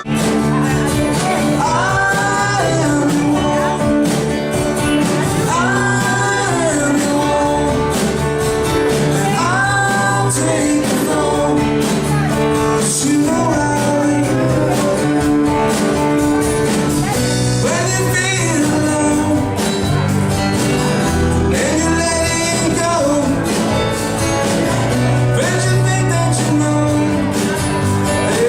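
Live band playing a rock song, with a singer's lead vocal over drums, bass and guitar.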